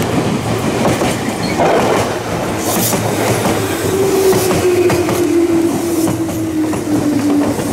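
Red Meitetsu electric commuter train passing close by, its wheels and running gear making a dense, steady rail noise. From about halfway through, a steady whine slowly falls in pitch.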